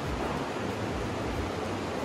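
Alpine river rushing through a narrow rock gorge: a steady, even rush of fast-flowing water.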